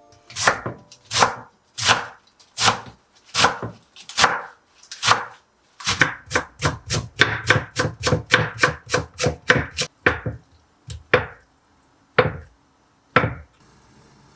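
Kitchen knife chopping food on a cutting board. It starts with slow single cuts, about one every second or so, then speeds into a quick run of about four or five cuts a second, and ends with three separate cuts.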